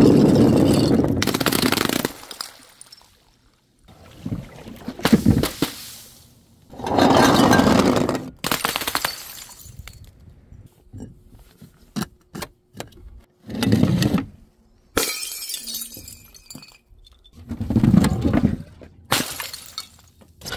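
Glass bottles and jars shattering one after another. There are about six separate breaks, each a second or two of breaking glass and falling shards, with a few short, sharp clinks of glass between them.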